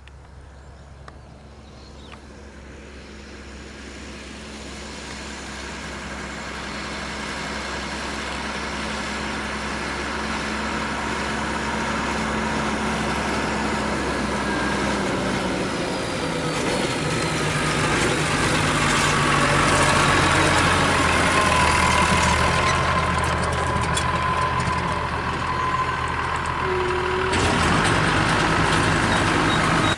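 Massey Ferguson 6180 tractor running steadily with a John Deere 590 baler working behind it, growing steadily louder as it draws near. The engine note shifts about halfway through and a whine rides over it in the second half.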